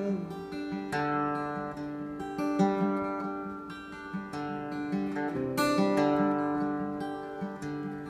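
Steel-string acoustic guitar strummed and picked in an instrumental break, chords ringing on between strokes, with the strongest strums about a second in and again past the middle.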